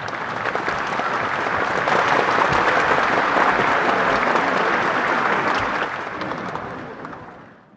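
Audience applauding: dense clapping that swells to a peak and then fades out near the end.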